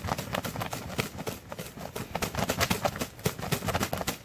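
Rapid, irregular rustling and thudding in dry field vegetation, many sharp hits a second.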